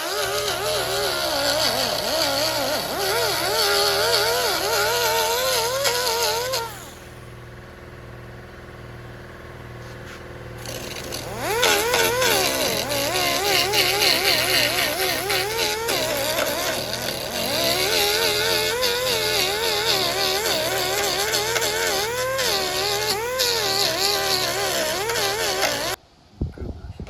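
A high-speed power tool grinding, its whine wavering in pitch as it is loaded. It runs for about six seconds, stops for about four, then runs again for about fifteen seconds before cutting off shortly before the end, over a steady low hum.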